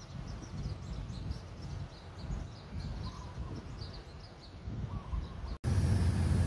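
Small birds chirping over a low outdoor rumble. About five and a half seconds in, the sound cuts out for an instant, and a much louder, steady low rumble takes over.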